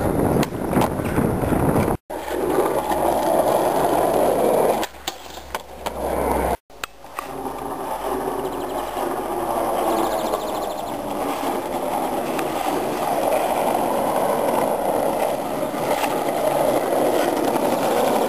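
Skateboard wheels rolling over rough asphalt in a steady grinding rumble, with a few sharp clacks of the board. The sound breaks off briefly twice early on.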